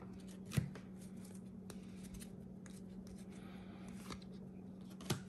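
Baseball trading cards being flipped through by hand: faint slides and light clicks of card stock, with a sharper tap about half a second in and another near the end, over a steady low hum.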